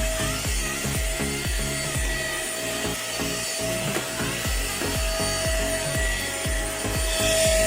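Background music with a steady beat plays over a Deerma DX700 handheld vacuum cleaner, whose motor runs with a steady high whine.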